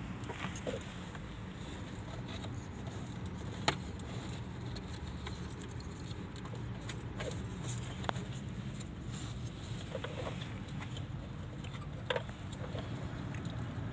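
Hands working wires and plastic parts at a car's under-dash fuse panel: a handful of small, sharp clicks and taps, the sharpest about four seconds in, over a steady low background rumble.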